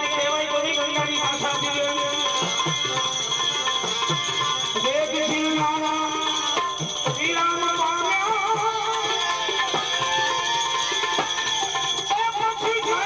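Gujarati folk music playing: a wavering melody line over jingling percussion.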